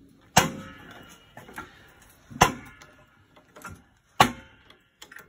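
Hammer blows through a block of wood on a seized piston in a Volvo Penta AQ170 engine block held in a jack-loaded press. Three sharp strikes about two seconds apart, each followed by a brief metallic ring.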